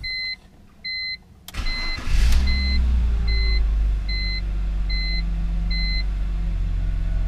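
BMW E46 325xi's inline-six starting: a short crank that catches about two seconds in, then settling into a steady idle. The car's warning chime beeps about eight times over the first six seconds.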